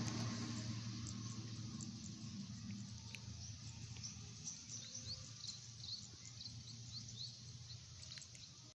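A bus engine fades away over the first couple of seconds as the bus drives off. Then birds chirping: a string of short, falling chirps over quiet outdoor background noise.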